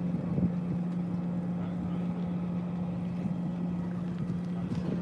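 An engine or motor running steadily: an even low hum holding one pitch, over a rumbling wash of noise.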